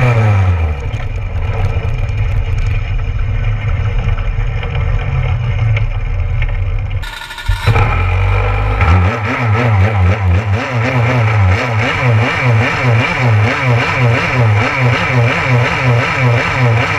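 Go-kart engine close to the microphone, its pitch falling as the kart slows in the first second, then running steadily. After a brief break, a kart engine idles with a regular, repeating rise and fall in pitch.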